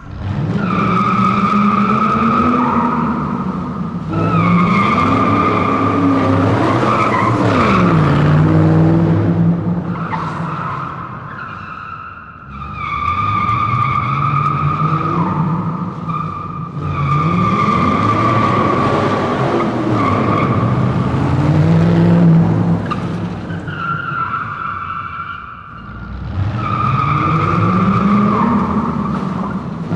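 Car tyres screeching continuously in long squeals, one high steady tone with overtones, over a car engine revving up and down. The squeal eases briefly twice, about twelve and twenty-six seconds in.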